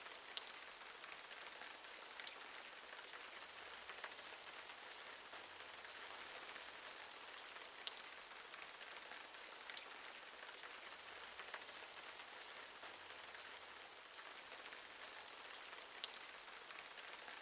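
Steady rain falling: a soft, even hiss with occasional louder drop taps.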